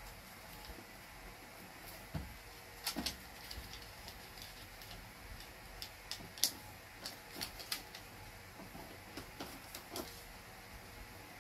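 Small squares of origami paper being folded and creased by hand: faint, irregular crinkles and taps, with a cluster of sharper clicks through the middle.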